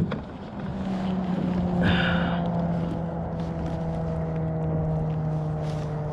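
A motor engine's steady drone, its pitch slowly falling. A short high-pitched squeal about two seconds in.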